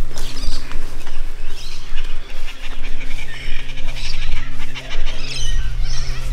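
A large flock of white cockatoos making harsh, overlapping calls as it takes off from a lawn and flies away.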